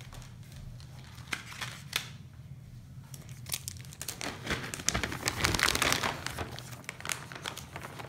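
Plastic packaging crinkling as a clear zip-lock bag of blister-packed mechanical pencils is handled: a few scattered crackles at first, then dense, continuous crinkling from about halfway.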